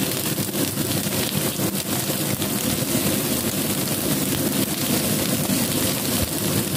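Slices of Chinese radish cake (lo bak go) sizzling steadily as they pan-fry in a nonstick frying pan.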